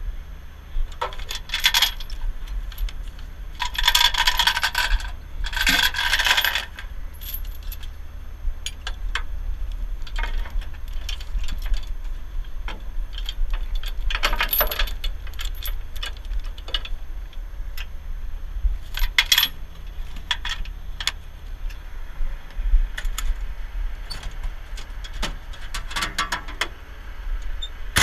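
Steel tow chains and grab hooks clinking and rattling in short bursts as they are handled and hooked onto a truck's frame, the loudest rattling a few seconds in. A steady low engine idle runs underneath.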